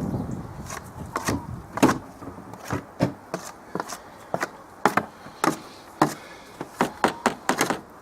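Irregular sharp knocks, taps and clatter of a tool or hard objects striking as dirty bedding is scraped and knocked out while cleaning out a chicken house, about a dozen hits at uneven spacing.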